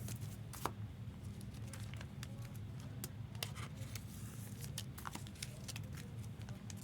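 Trading cards being handled in plastic sleeves and top loaders: scattered light clicks and plastic crinkling over a steady low hum.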